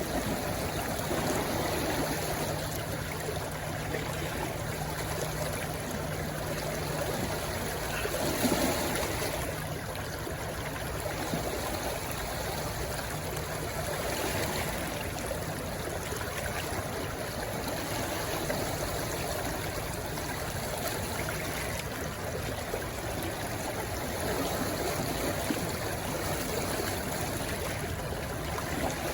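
Stream rushing and splashing over rocks in a steady wash, with small surges, the strongest about a third of the way in.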